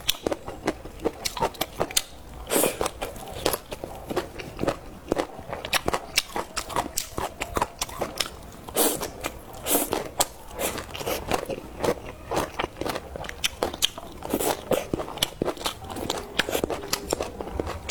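Close-up biting and chewing of crunchy food, with rapid irregular crunches and crackles.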